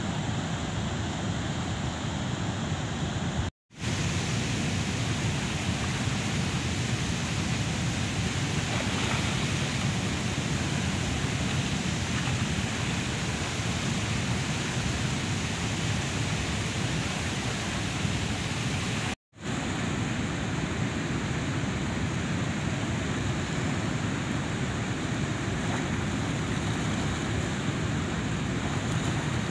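Steady rushing of river water pouring over a weir's spillway gates and churning downstream, a continuous noise without a beat. It cuts out for a split second twice, about 3.5 s and 19 s in.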